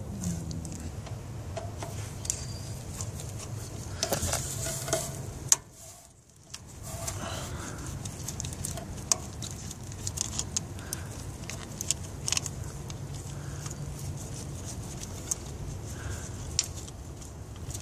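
Scattered light clicks and taps of hand tools and metal parts being handled in a car's engine bay, over a steady low hum.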